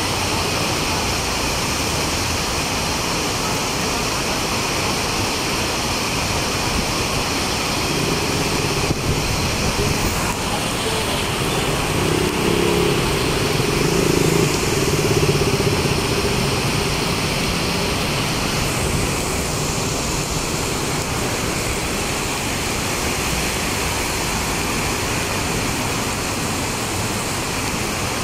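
Heavy rain pouring steadily onto a wet street. A passing vehicle's engine hum rises over it from about eight seconds in, loudest around twelve to fifteen seconds in, then fades.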